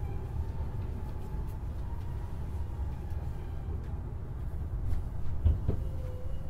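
Senboku 7020 series electric train running, heard inside the car above the bogie: a steady low rumble of wheels on rail with a faint whine from the Hitachi two-level IGBT inverter drive. A thump about five and a half seconds in, and a lower whine starts near the end.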